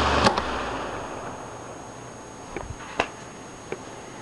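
Electric fan running with a steady rush of air, switched off with a click just after the start. The noise dies away over about a second as the blades spin down, and a few light clicks and taps follow.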